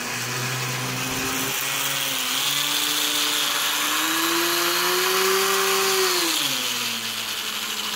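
Electric toy train motors running against each other under load: a Marx 490 locomotive's double reduction motor whining at full power in reverse, and the Aero car's small motor spinning its propeller with a buzzing hiss. The whine climbs slowly in pitch, then drops about six and a half seconds in.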